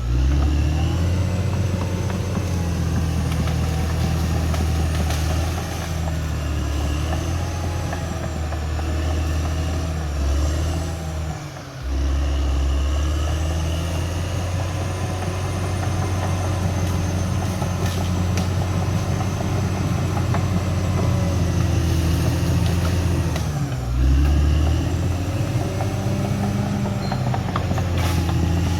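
Caterpillar D6R XL bulldozer's diesel engine running steadily under work, with a faint high whine above it; the engine sound dips and briefly drops out about twelve seconds in, and its pitch sags and recovers near 24 seconds.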